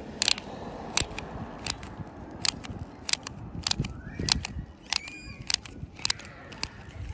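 Irregular sharp plastic clicks, two or three a second, as a red spin top is pressed and turned onto the tip of a toy spin-top launcher gun.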